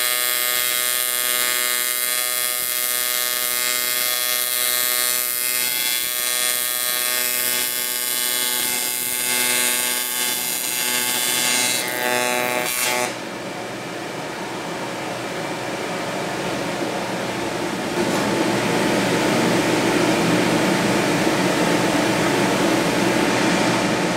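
AC TIG welding arc on thick aluminum, a steady electric buzz made of many even tones. About halfway through the buzz cuts off suddenly and a steady rushing noise takes over. It grows louder and steps up again a few seconds later.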